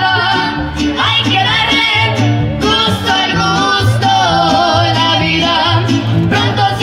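Live mariachi music: two women singing with a wavering vibrato over strummed guitars and vihuelas, with a moving bass line underneath.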